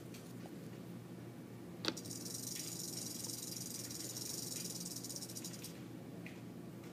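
Young rattlesnake buzzing its rattle: a high, dry, even buzz that starts about two seconds in, lasts about four seconds and stops suddenly, just after a sharp click.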